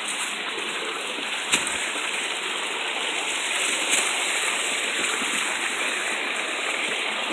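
Running water rushing steadily, with a sharp click about one and a half seconds in and another around four seconds.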